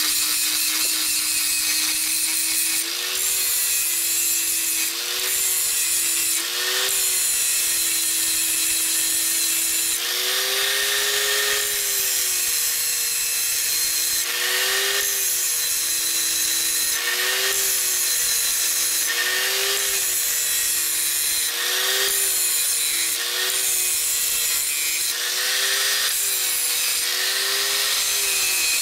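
Small angle grinder running steadily while its thin abrasive wheel grinds the welded-up tip of a Harley Panhead rocker arm, with a harsh grinding hiss over the motor. The motor's pitch swings up and back again and again as the wheel is worked against the metal, reshaping the tip for high-lift rocker geometry.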